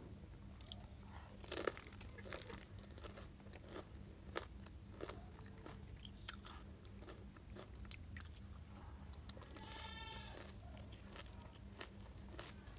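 Close-up crunching and chewing of crisp pani puri shells filled with spiced water, in irregular crackles. A bleating animal call sounds once, about ten seconds in.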